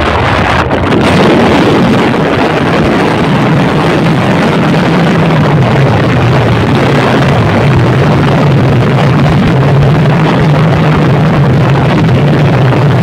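Wind rushing over the microphone of a vehicle moving at road speed. A steady engine hum sits under it from about three seconds in.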